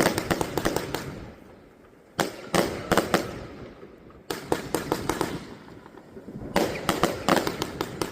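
Riakeo 'The Great Wall' firework going off in volleys about every two seconds, four in all, each a quick cluster of sharp bangs and crackles that dies away before the next.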